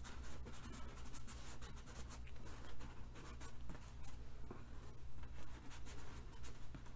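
Fingers rubbing and pressing painter's tape down onto a cloth lampshade: soft, irregular scratching and crackling.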